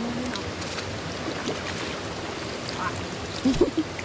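Steady rushing of a flowing stream, with a short burst of voices about three and a half seconds in.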